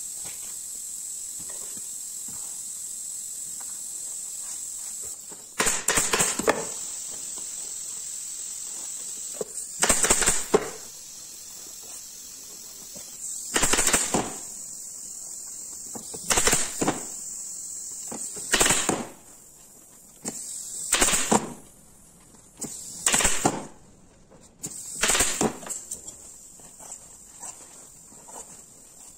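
Pneumatic staple gun firing staples through black leatherette into a wooden seat board, one sharp shot about every two to four seconds, around eight in all, over a steady high hiss.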